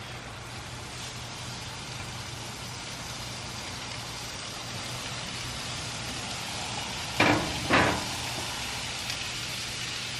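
Steak sizzling on a hot Blackstone flat-top griddle, a steady sizzle with a low hum under it that grows slightly louder once the meat is down. Two short, louder noises come close together about seven seconds in.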